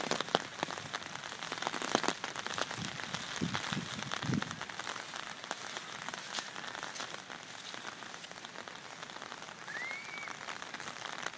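Steady rain falling, a dense patter of many small drops. A brief high chirp sounds near the end.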